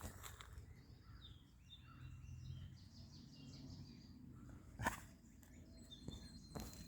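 Faint outdoor ambience with small birds chirping in the distance, and one sharp click about five seconds in.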